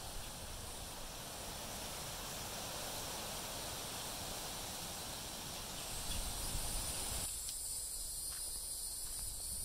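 Outdoor ambience of wind blowing through the trees and across the microphone, under a steady high drone of insects. About seven seconds in, the wind noise drops away abruptly and the insect drone stands out.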